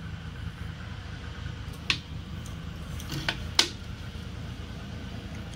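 Steady low background rumble with three sharp clicks, one about two seconds in and two close together about a second later, the last the loudest.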